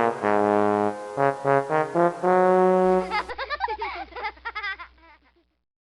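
Music: a short phrase of held, brass-like notes, then a warbling tail that fades out about five seconds in.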